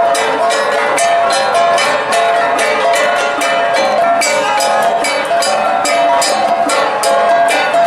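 Cordilleran gangsa (flat gongs) played as an ensemble, struck in a fast, steady interlocking rhythm, several ringing strokes a second.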